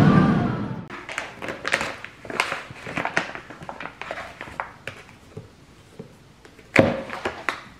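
A louder noise fades out in the first second, then plastic packaging crinkles and clicks as a bag of dried mango and a plastic yogurt tub are handled. A single thump near the end as the tub is set down on the kitchen counter.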